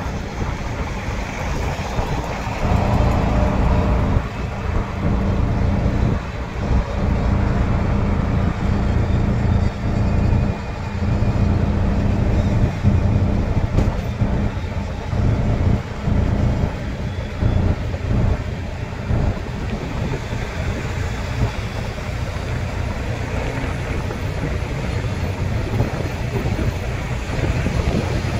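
Road noise of a vehicle driving at highway speed, with wind buffeting the microphone in uneven gusts.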